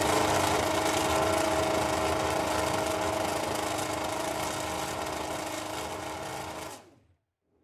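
Superleague Formula Panoz DP09B's 4.2-litre V12 engine held at steady revs, its note slowly fading as the car moves away. The sound cuts off suddenly near the end.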